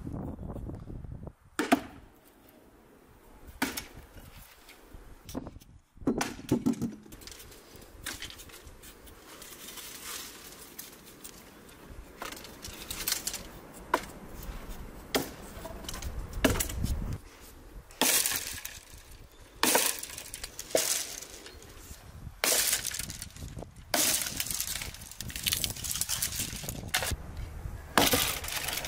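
A large kitchen knife paring a potato, and an axe chopping a thin branch on a wooden stump. A run of sharp cracking strokes, most of them in the second half.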